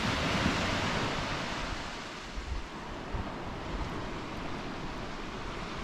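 Surf washing onto a beach, a little louder in the first second or so and then easing, with wind buffeting the microphone.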